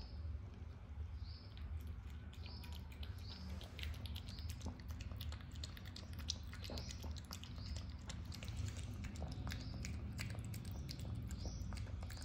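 A dog eating hungrily: quick chewing with many small irregular clicks and taps.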